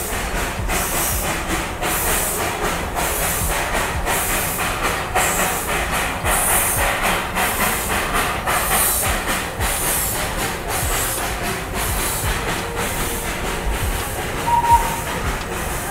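Darjeeling Himalayan Railway steam locomotive under way, hissing steam and chuffing in a steady rhythm, with rail clatter. A short toot sounds near the end.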